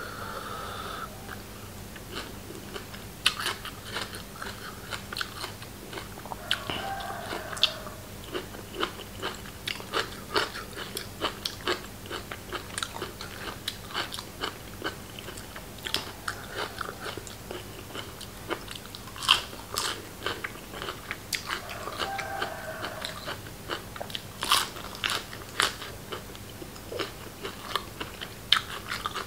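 A person eating close to the microphone, with steady biting and chewing and many sharp, irregular crunches from a crisp raw beef and liver salad.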